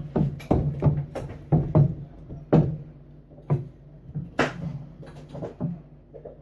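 A string of about fifteen irregular sharp knocks and clatters, thinning out after the first few seconds, over a steady low hum.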